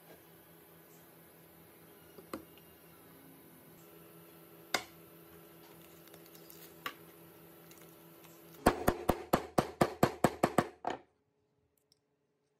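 Rapid series of about a dozen sharp metal taps, roughly five a second, as a hammer drives a new ball bearing onto an electric motor's rotor shaft; the tapping cuts off suddenly. Before it, a faint steady hum with a few isolated clicks of parts being handled.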